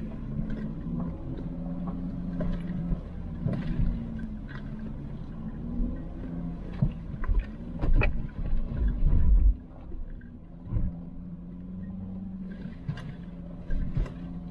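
Cabin sound of a 2008 Volkswagen Touareg V6 turbodiesel driving a rough sand track. Its steady low engine note runs under frequent knocks and rattles from the body and suspension over bumps, with a cluster of heavy thumps a little past halfway.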